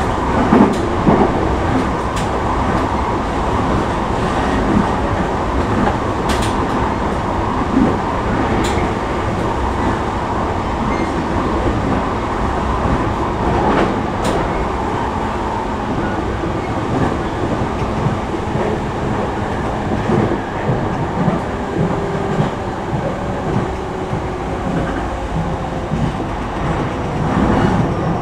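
Cabin running noise of a JR E233-5000 series electric train: a steady rumble of wheels on rail, broken by a few sharp clicks.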